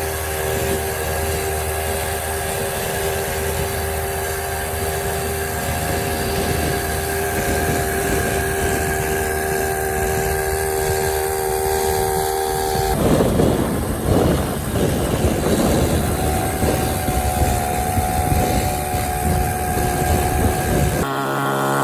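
Small two-stroke chainsaw engine running steadily on a home-built farm bike. About 13 seconds in the sound turns rougher and noisier, then steadies again.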